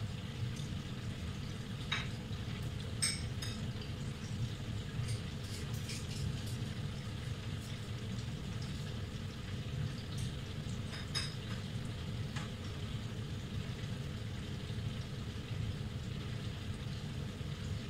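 Beef kofta meatballs frying in bubbling oil in a pan: a steady sizzle with scattered sharp pops.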